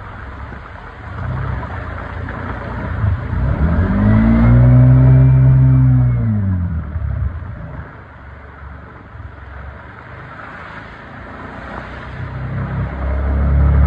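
Heavy rain hissing steadily over road traffic. A vehicle engine revs up and back down, loudest about four to six seconds in, and another engine builds near the end.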